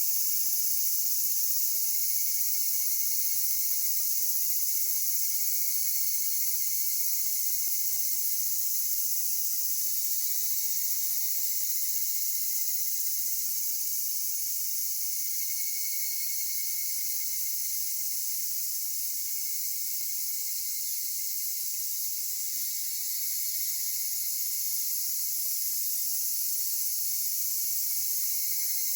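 Continuous, steady high-pitched chorus of insects, cicadas among them, with no pauses or rhythm.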